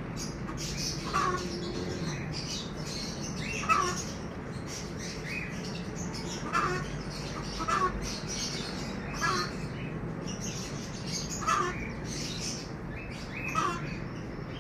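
Farmyard poultry calling in short, separate squawks, about seven of them at uneven gaps of one to three seconds, with fainter high chirping from small birds between.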